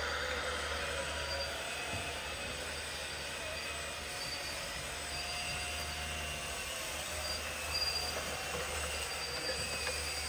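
Radio-controlled model construction machines with electric motors whining at several high pitches that shift slowly up and down as they work, over a steady low hum.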